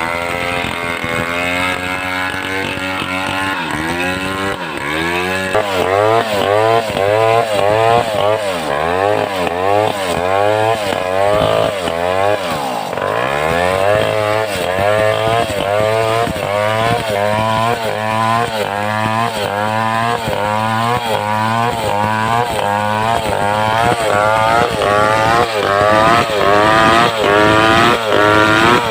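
Homemade two-stroke chainsaw running hard under load, as when sawing timber, its engine note rising and falling in a fast repeating wobble. About halfway through the pitch dips sharply and climbs back.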